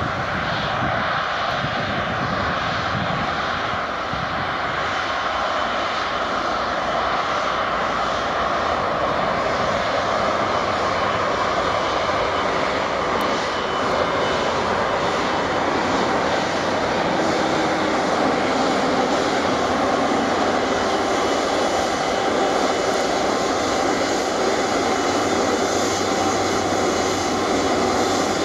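Airbus A330-300 airliner's jet engines running at taxi power as it rolls past on the taxiway: a steady rushing hiss that grows a little louder as the aircraft nears.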